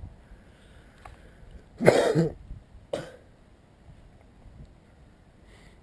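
A person coughs twice: a loud cough just under two seconds in and a shorter one about a second later.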